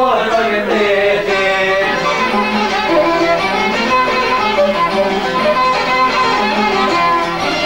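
Instrumental passage of an Albanian folk song: a violin plays the melody over a steady accompaniment, with no singing.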